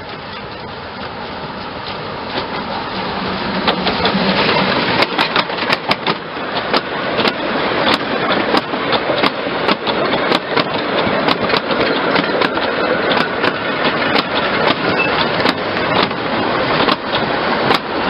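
Metre-gauge steam train passing close. The sound of the working locomotive swells over the first few seconds. Then the wagons run by, their wheels clacking irregularly over the rail joints.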